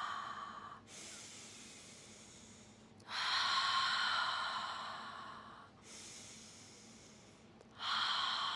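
A woman's deep open-mouthed exhales, each starting suddenly and fading over two to three seconds, with quieter breathing between. One exhale trails off at the start, another comes about three seconds in, and a third begins near the end: the second and third of three cued mouth breaths.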